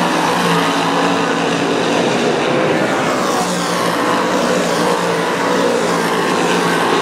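Dirt-track modified race cars' V8 engines running hard around the oval: a loud, continuous din, with engine notes rising and falling as the cars pass.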